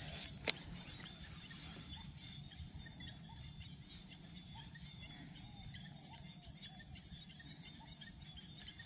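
Faint outdoor ambience of scattered small bird chirps and insects over a low steady hum, with one sharp click about half a second in.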